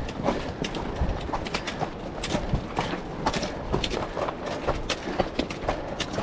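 Rapid, irregular clicking and knocking over a steady low rumble, like many runners' footsteps on the move.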